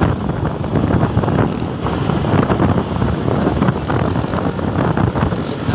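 Wind rushing and buffeting over the microphone of a moving motorcycle, a steady rough noise with the bike's engine and road noise underneath.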